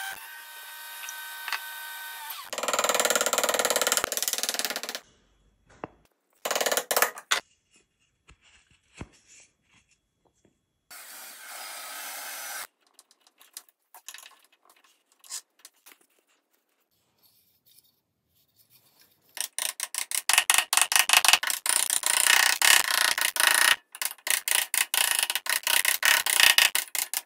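A drill press motor running and its bit boring into a wooden block, loudest for a couple of seconds after the start. Then short bursts and quiet gaps, and finally about eight seconds of rapid, dense hand-tool strokes on wood as a chisel works the block.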